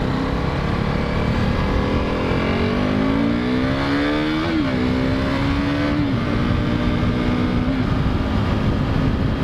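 KTM RC390 single-cylinder engine accelerating at highway speed, heard from the rider's helmet with wind rush. The engine note climbs steadily, drops sharply with an upshift about four and a half seconds in, then holds near-steady cruise, easing down slightly twice.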